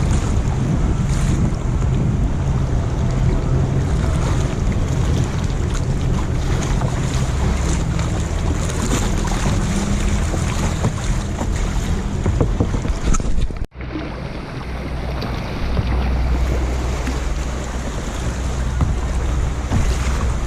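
Wind buffeting the microphone over lapping lake waves, heard from a kayak on open water. The sound cuts out for an instant about fourteen seconds in, then carries on.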